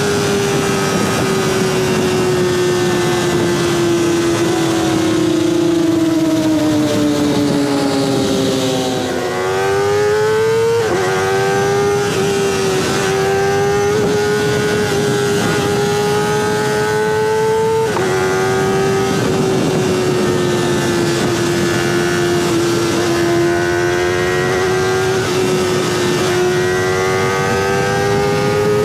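Kawasaki ZX-25R's high-revving inline-four engine through a DX Generation Sphere aftermarket exhaust while riding. The engine note winds down for about nine seconds, then rises sharply and holds at high revs with a few abrupt steps in pitch, dips a little and climbs again near the end.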